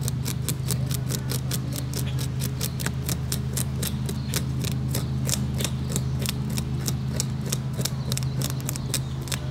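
Rock bass being scaled on wooden boards with the rim of a clear plastic container: rapid scraping strokes, about five a second, as the scales flick off. A steady low hum runs underneath.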